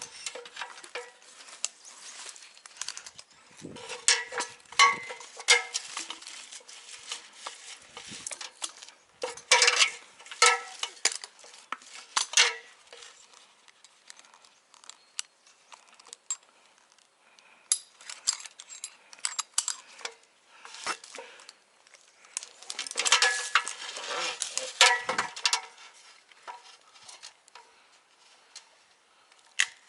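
Metal rope-climbing hardware clinking and rattling in clusters of clatter, with quieter stretches between.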